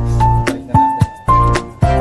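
Background music: an instrumental with a steady deep drum beat and a melody of held notes.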